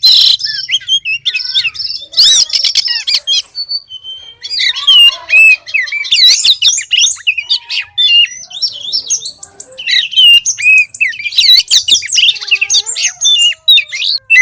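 Female oriental magpie-robin singing a fast, varied run of whistled notes, chirps and harsh chatters, with a short pause about four seconds in. It is the song of a female in breeding condition calling for a male, used as a lure for male magpie-robins.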